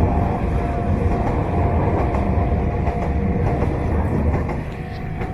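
Enoden electric train running on its rails: a steady, loud rumble of wheels and running gear, with a faint steady whine above it.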